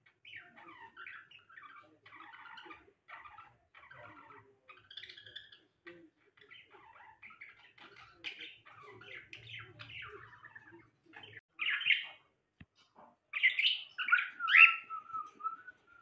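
Small pet parrots chirping and chattering in a quick run of short calls. There is a louder squawk about two-thirds of the way through and a cluster of loud calls near the end, the last trailing off in a falling whistle.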